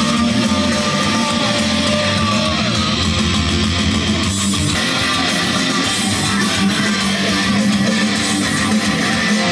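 Rock music with guitar playing, loud and steady.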